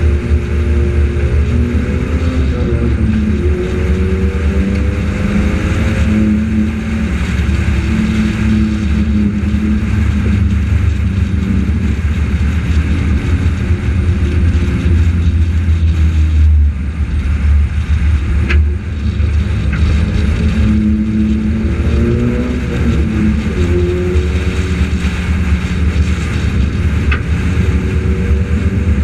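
Onboard sound of a front-wheel-drive Honda four-cylinder race car at speed. The engine's pitch sags as the driver lifts into the turns, about 3 seconds in and again about 22 seconds in, then climbs back on the throttle, over heavy wind and road rumble.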